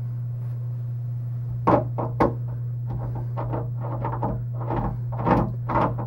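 Door knob and its square spindle being handled and fitted together: a few small metal clicks, then from about halfway a quicker run of clicks and rattles, about three or four a second. A steady low hum lies under it all.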